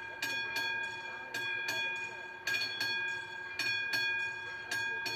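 Level-crossing warning bell ringing: repeated metallic strokes, about two or three a second at uneven spacing, each leaving a ring that hangs on.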